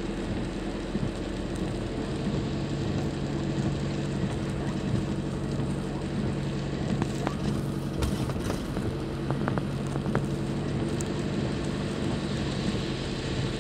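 Steady engine hum and tyre noise of a vehicle driving on a wet road, heard from inside the cabin.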